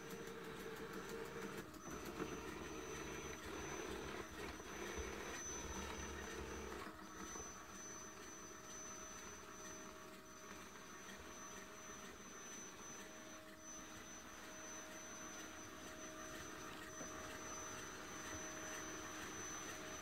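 Jisiwei robot vacuum running as it drives itself back to its charging dock: a faint, steady motor whir with a thin high whine. A lower hum drops away about seven seconds in.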